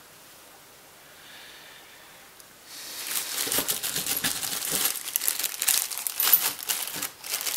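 Clear plastic bag crinkling as it is picked up and handled, in quick irregular crackles that start about three seconds in after a quiet opening.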